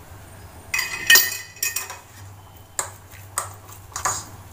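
Metal spoon knocking and scraping against a metal bowl while stirring thick masala paste: a loud ringing clink about a second in, then a few separate sharper taps.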